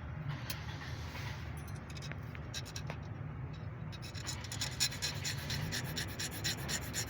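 Rebuilt car engine running steadily at idle with a low hum. From about four seconds in there is a fast, even ticking, roughly eight ticks a second.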